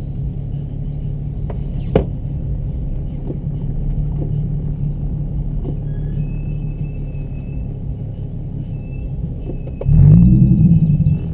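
Car engines idling with a steady low rumble. Near the end one engine is revved once, the loudest moment: its pitch climbs and drops back within about a second.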